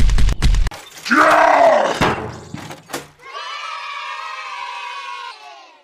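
Cartoon sound effects. A rapid rattling engine sound cuts off less than a second in. A loud scream falling in pitch follows, with a crash of something breaking. Then comes a long, high, voice-like wail that fades out near the end.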